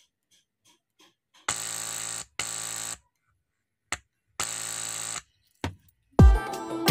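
Loudspeaker on a homemade amplifier buzzing in short bursts as a screwdriver tip touches the amplifier's audio input, a simple test that the amp is amplifying. About six seconds in, music with heavy bass beats starts.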